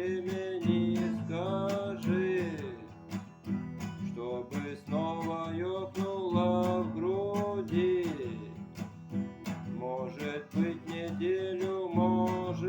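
Strummed acoustic guitar, with a man singing a Russian song over it.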